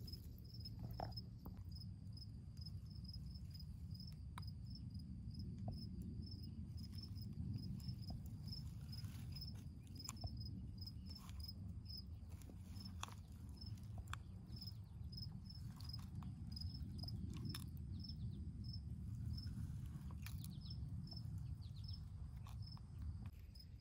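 A cricket chirping in a steady, even rhythm, about two short high chirps a second, over a low background rumble with a few scattered faint clicks.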